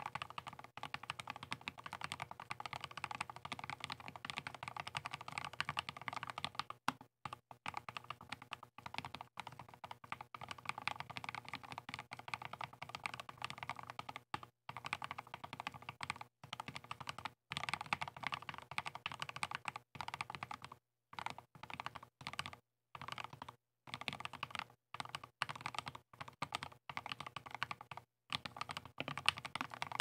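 Mechanical keyboard being typed on: a CiY Tester68 with AquaKing switches and Epomaker Barometer XDA-profile keycaps, giving a fast, steady run of keystroke clacks, broken by brief pauses more often in the second half.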